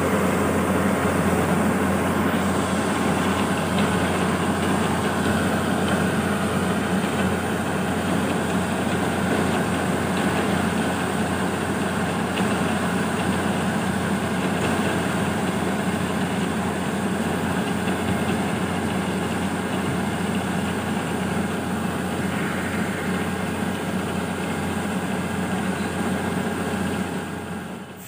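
Kubota combine harvester's engine and unloading auger running steadily while rice grain is discharged into a trolley, a constant heavy machine drone that falls away in the last second.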